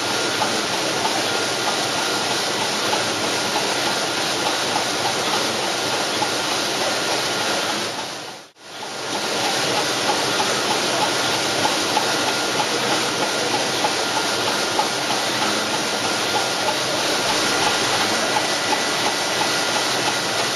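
VanDam 570 printing machine and its line running: a steady, dense mechanical noise with faint steady whines. The sound drops out for a moment about eight and a half seconds in.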